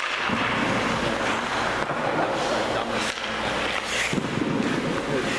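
Ice hockey goalie's skate blades and leg pads scraping and sliding across the ice during butterfly slides and pushes, with a few short knocks.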